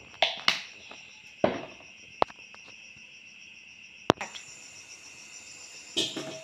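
Crickets chirping steadily, with several sharp knocks and clicks over them and one short ringing metal clink about two seconds in. Near the end, a spoon scrapes and clatters against a plate and a steel pot.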